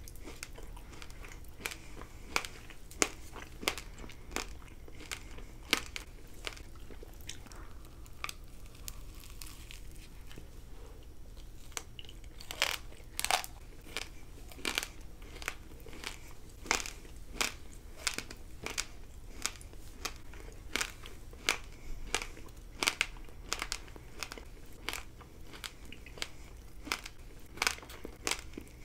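Mouth sounds of eating an edible hairbrush close to the microphone: sharp, irregular crunches as it is bitten and chewed, about one every second or so, with the loudest cluster about halfway through.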